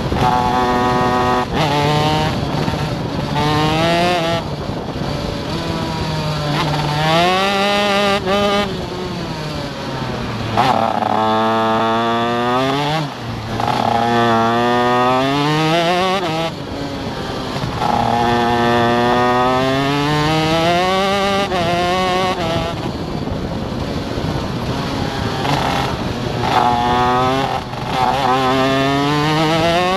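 Stock Honda 125cc two-stroke shifter kart engine heard onboard under racing load, its pitch climbing as it accelerates through the gears and dropping back for corners, over and over.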